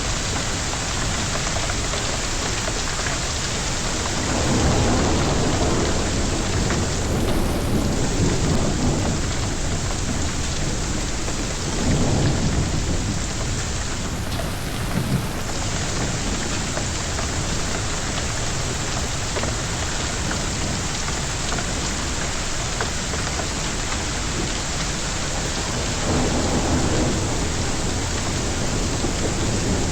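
Thunderstorm: heavy rain falling steadily, with rolls of thunder rumbling about four seconds in, again around twelve seconds, and near the end.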